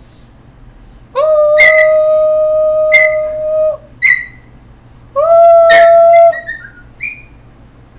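Small dog howling in two long, steady notes, with sharp yelps and short falling whimpers during and between them, in response to its owner's coaxing.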